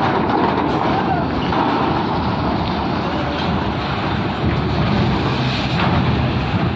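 Heavy truck pulling a lowbed trailer loaded with a rough-terrain crane up a steel ferry ramp: the engine rumbles steadily under load while the trailer's rows of tyres roll over the steel grating.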